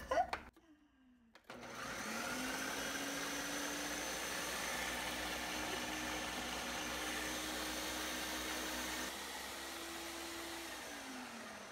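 Ninja countertop blender/food processor grinding slices of whole-wheat bread into crumbs. Its motor starts up with a rising whine about a second and a half in, runs steadily, shifts a little higher and softer near the end, then winds down with a falling whine.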